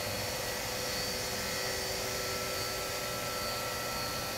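Steady machine whir with several faint, steady high tones, even and unbroken: a Sharp SV-2412 CNC vertical machining center running under power.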